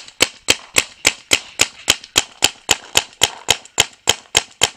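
Dye DAM paintball marker firing on semi-automatic: a steady, even string of sharp shots at about three to four a second, each one a separate trigger pull.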